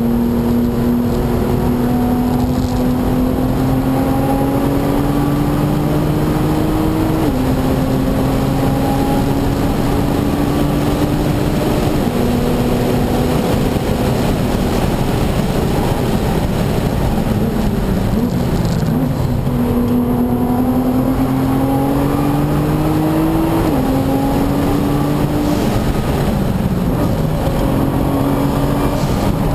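Nissan GT-R's twin-turbo V6 heard from inside the cabin under hard track driving: the engine climbs in pitch and drops at quick upshifts about 7, 12 and 24 seconds in, with a stretch of falling engine pitch around the middle as the car slows for a corner, then climbs again. Steady wind and tyre noise runs underneath.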